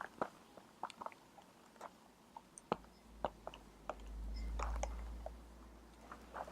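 Lavalier microphone rubbing against a dress: scattered little crackles and clicks, with a soft low rumble that swells and fades midway.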